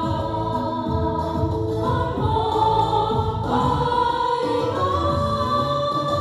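A group of women singing a Vietnamese song together into microphones, ending on a long held note that starts a little past halfway.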